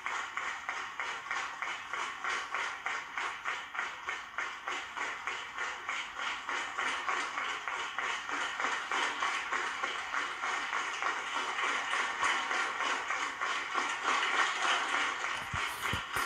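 Large theatre audience applauding, a dense steady mass of clapping that grows louder in the second half.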